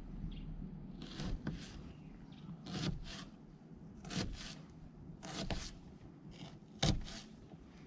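Kitchen knife cutting down through a peeled onion half on a plastic cutting board: about ten short slicing strokes, mostly in pairs, with one sharper knock of the blade on the board near the end.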